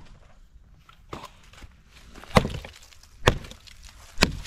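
Wood being chopped: three sharp strikes about a second apart, after a fainter knock about a second in.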